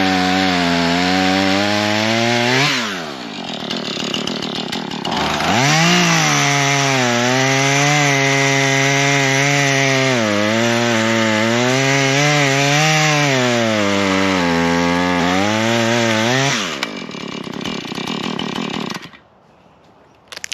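Husqvarna 440 two-stroke chainsaw cutting wood at full throttle, its pitch dipping and recovering under load in the cut. It drops to idle briefly, revs back up for a longer cut, then falls back to idle and cuts off near the end.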